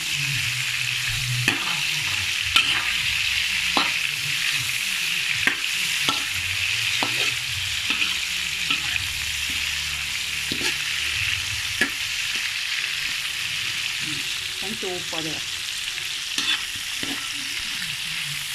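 Shell-on prawns frying in hot oil in a metal wok, a steady sizzle, with a metal spatula scraping and clinking against the pan now and then as they are turned.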